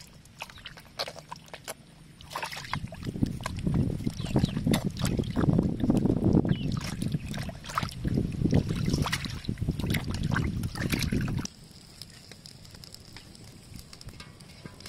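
Water sloshing and splashing in a steel bowl as hands rub and rinse plucked quail carcasses, with irregular wet splashes and small knocks against the bowl. The splashing stops abruptly near the end, leaving a faint quiet background.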